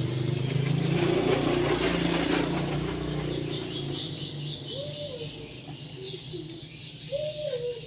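A motor vehicle engine running steadily, fading out after about three seconds. Later come a few short rising-and-falling calls.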